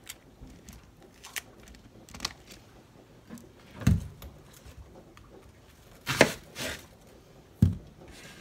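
A kitchen knife and vegetables knocking on a cutting board. There are scattered light clicks and three heavier thuds, the loudest about four seconds in and the others around six and seven and a half seconds.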